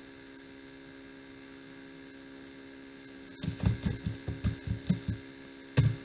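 Steady electrical mains hum. Past the middle it is joined by a quick run of about eight keystrokes typing a search, then one sharper, louder key press near the end, the Enter that submits it.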